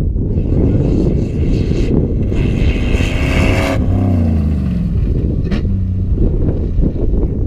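Land Rover-based comp safari race car driving past at speed over grass. Its engine note climbs as it approaches, then drops in pitch as it passes about four seconds in and pulls away. Wind rumbles on the microphone throughout.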